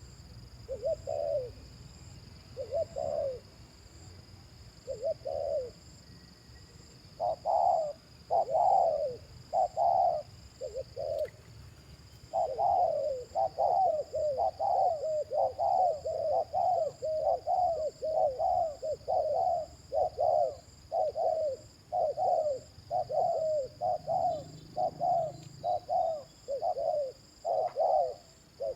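Spotted dove cooing: a few spaced coos, then from a little before halfway a fast, unbroken run of repeated coos, the excited cooing that dove keepers call 'thúc gù'.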